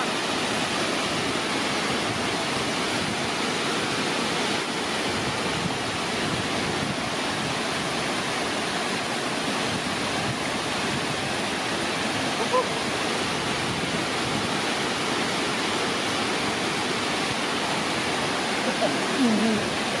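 Wide curtain waterfall pouring over a wall-like drop into a churning pool: a dense, steady rush of falling water.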